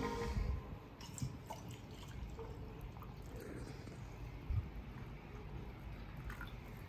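Coffee poured from a stainless steel pot into a ceramic mug, a faint trickle of liquid.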